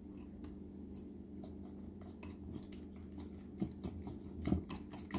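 Wire whisk beating eggs with cooked nopal pieces in a white ceramic bowl: light clicks of the wires against the bowl, faint at first and coming thicker from about a second and a half in, with a few louder taps near the end. A steady low hum runs underneath.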